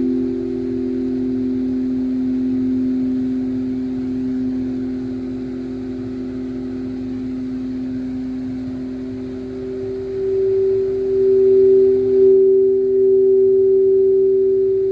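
Singing bowls ringing in two sustained tones, one lower and one higher, pulsing gently; the higher tone swells louder about two-thirds of the way in.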